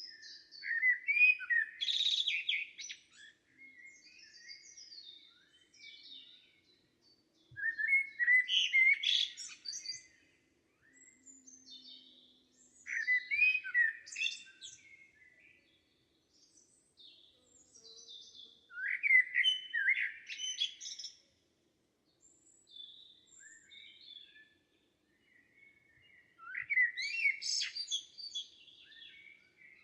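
Forest songbirds singing: one bird repeats a loud song phrase of two to three seconds about every six seconds, five times in all, while other birds chirp more faintly in between.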